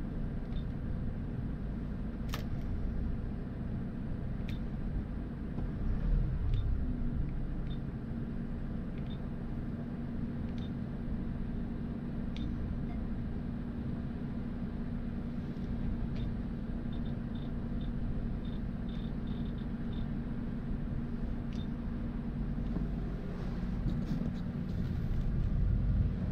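Hyundai Porter's diesel engine idling steadily, heard inside the cab. Faint clicks of car-stereo buttons being pressed come every few seconds.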